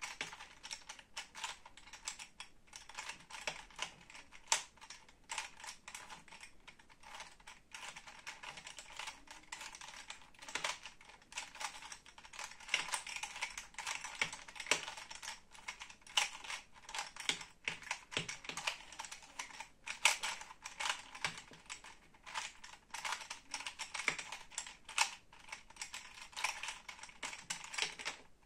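Plastic 3x3 Rubik's cube being turned quickly by hand: a fast, irregular run of clicks as its layers snap round, several a second, some louder than others.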